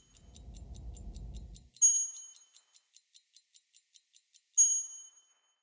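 Rapid clock-like ticking, about five ticks a second, with a bright metallic ding near 2 seconds in and another near the end. A low rumble underneath stops before the first ding, and the ticking stops shortly after the last ding.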